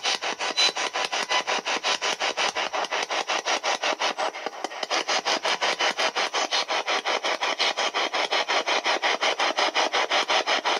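Handheld spirit box, a radio sweeping rapidly through stations, giving a steady chopped hiss of static at about six pulses a second.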